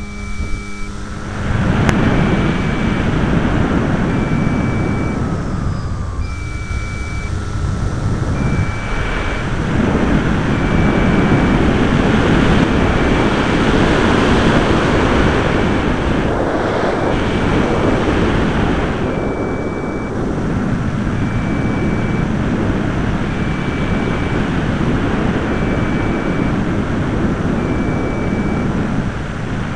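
Air rushing over the microphone of a small camera on a balsa RC plane in flight, loud and steady after a quieter first second and a half. A thin high tone pulses on and off about every second and a third.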